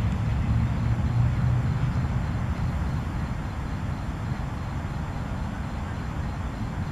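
Steady low rumble of wind buffeting the camera microphone, with no distinct event in it.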